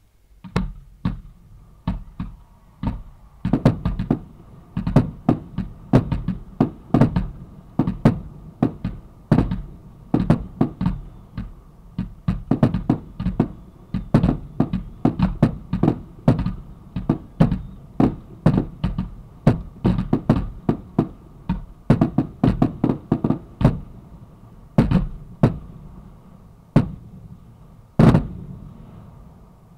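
Fireworks shells going off close to the launch site: a rapid, irregular string of sharp booms, at times several a second, each trailing off in an echo. The single loudest bang comes near the end.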